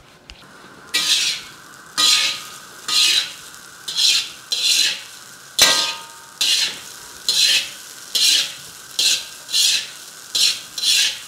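Fried rice sizzling in a hot steel wok over a gas flame as it is turned over and over with a metal spatula. Each stroke brings a short burst of sizzle, a little faster than one a second, and the spatula clinks sharply against the wok twice, loudest a little past halfway.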